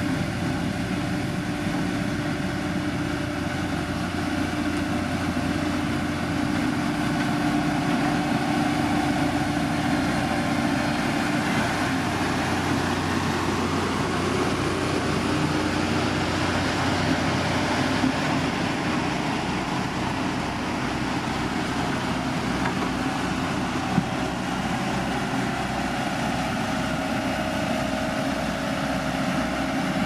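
Heavy diesel engines of a SANY motor grader and Sakai SV521DF vibratory road rollers running steadily as they spread and compact a gravel road base.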